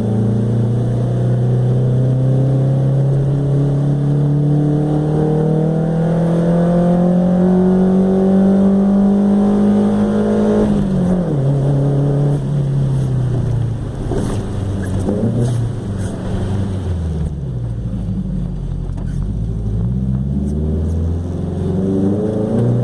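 Chevrolet Chevette 1.6 S four-cylinder engine with a 4x1 header and straight pipe, pulling hard with the revs climbing steadily for about ten seconds. The note then drops off sharply, and the revs rise and fall before climbing again near the end.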